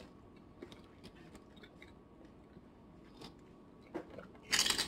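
Quiet chewing with a few small mouth clicks, then near the end a loud crunch as a nacho chip is bitten into.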